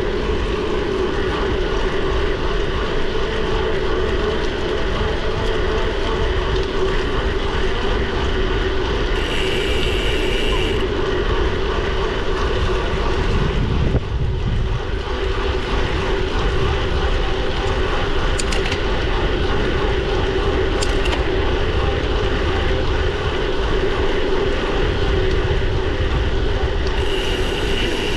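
Steady riding noise from a bicycle on the move: a constant droning hum over low wind rumble on the action camera's microphone, with a couple of faint ticks about two-thirds of the way through.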